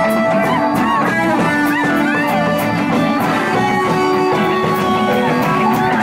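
Live blues band playing: electric guitar with bent notes over drums with a steady cymbal beat, about two strokes a second.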